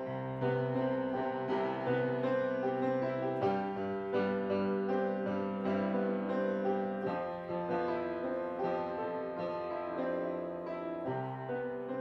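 Knabe 5'7" grand piano being played: chords and melody over held bass notes, the bass changing about every three to four seconds.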